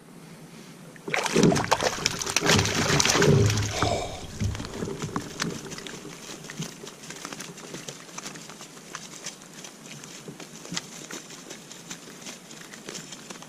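Splashing water as a hooked lake trout thrashes at the surface beside a canoe and is scooped with a landing net. The splashing is loudest for about three seconds starting a second in, then goes on as lighter splashes and drips.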